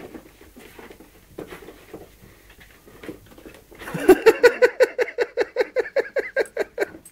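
Faint scuffling and paw patter of a West Highland white terrier puppy and a tabby cat play-fighting on carpet. About four seconds in, a person close by breaks into loud laughter, a rapid run of short ha's lasting about three seconds.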